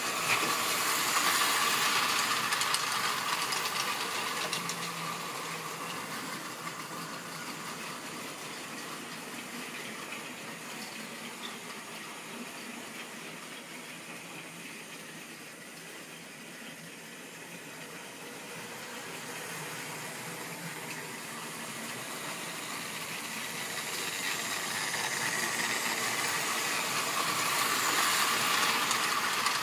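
A model railway train running round the track: the small electric motor's whine and the wheels rattling on the rails, fading as it moves away and growing louder again as it comes past close by near the end.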